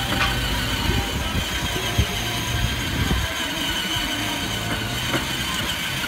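Kids' battery-powered ride-on jeep driving along, with a steady running noise from its electric drive and plastic wheels on concrete. A few knocks come as it rolls, about two seconds and five seconds in, and near the end it crosses a metal drain grate.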